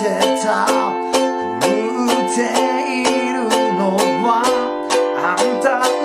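Ukulele strummed in a steady rhythm, about four strokes a second, with a man singing along. The chord changes about four seconds in, from F to G7.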